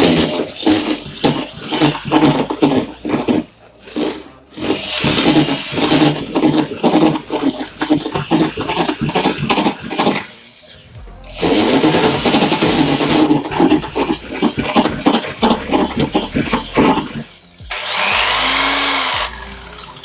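Electric drill with a mixing paddle stirring a mortar mix in a bucket. It runs in three short bursts, the last one speeding up and winding down, between stretches of knocking and scraping from the paddle and bucket.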